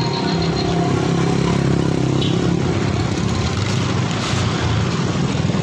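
Motorcycle engine running steadily while riding along a street, with road noise.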